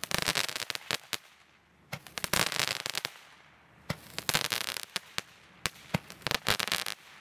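Consumer firework battery (salute cake) firing: four clusters of rapid crackling pops, each lasting about a second, separated by short quieter gaps.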